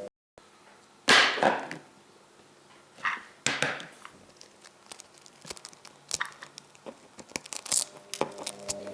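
Food-preparation handling sounds: a loud scraping or tearing swish about a second in, two shorter ones a couple of seconds later, then scattered light clicks and taps.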